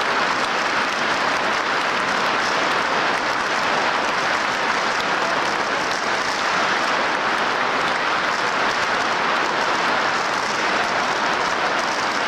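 Large stadium crowd applauding, a dense steady clapping that neither builds nor fades.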